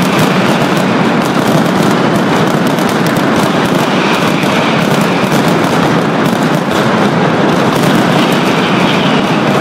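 Mascletà firecrackers going off in a dense, unbroken barrage, loud, the bangs too close together to count.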